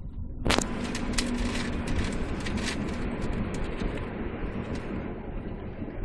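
Engine and road noise inside a moving car. About half a second in there is a sharp click, and the noise turns louder and hissier, with scattered light clicks on top.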